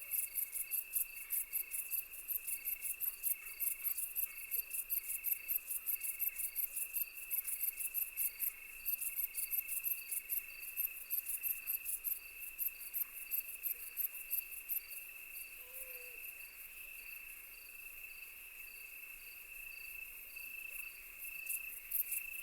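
Night chorus of crickets: rapid, even chirping over a steady high trill. The chirping eases off a little after the middle and picks up again near the end.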